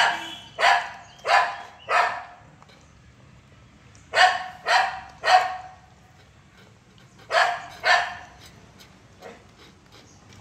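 A dog barking in short runs: four barks, a pause, three barks, a pause, then two, each run about half a second between barks.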